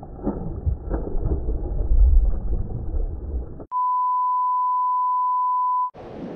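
A muffled low rumble is cut off by a single steady 1 kHz censor bleep lasting about two seconds, blanking out the angler's swearing over a lost fish. The rumble and surrounding noise return after the bleep.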